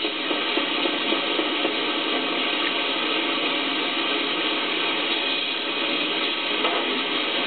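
Steady running noise of a sheet-metal duct fabrication coil line, an even mechanical hiss and hum with a few light knocks in the first second or two.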